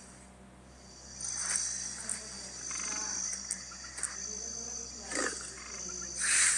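Leopard growls played by Google's 3D augmented-reality leopard, in several short spells, the loudest near the end.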